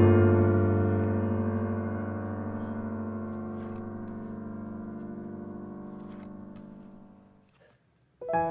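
Background piano music: a sustained chord that rings out and fades slowly to silence about seven and a half seconds in, before a new piano piece starts near the end. Faint clicks of photo cards being handled.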